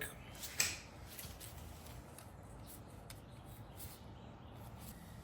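Faint handling noise: one brief sharp click or rustle about half a second in, a couple of fainter ticks later, over a low steady hiss.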